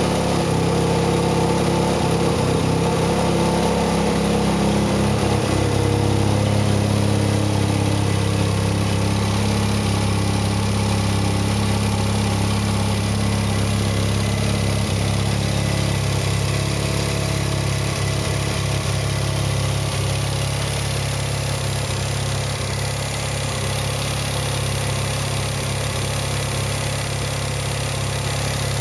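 Turbocharged Mazda RX-7 rotary engine, freshly installed with a GT35R turbo, idling steadily.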